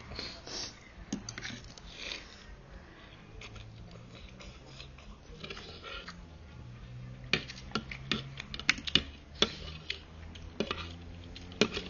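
Eating noodle soup from a bowl: utensils clinking against the bowl, with a quick run of sharp clinks in the second half.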